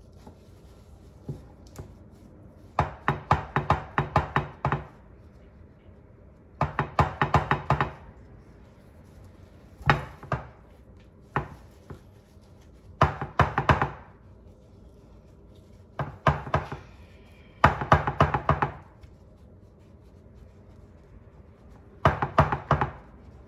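Runs of rapid knife strikes on a cutting board, several a second, coming in about eight bursts of one to two seconds with pauses between.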